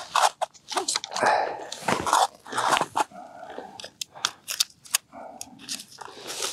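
Irregular crunching of snow and ice crumbs with sharp clicks, from hands working a winter pike tip-up into place over an ice-fishing hole.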